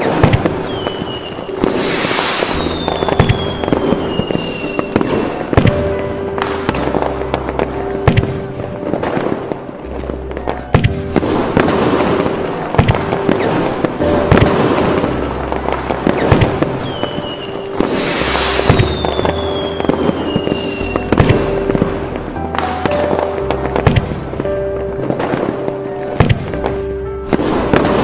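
Fireworks bursting and crackling in quick succession over background music with held notes and a bass line. Twice, a high whistle slides down in pitch.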